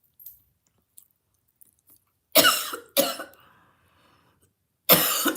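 A woman coughing three times: two coughs close together a couple of seconds in, then a third near the end. It is a coughing fit from food caught while eating and talking at the same time.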